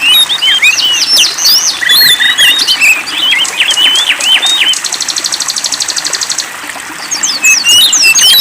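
Songbird song, used as training sound for caged songbirds: rapid, varied high chirps and whistled sweeps. A fast, even trill lasts about a second and a half past the middle.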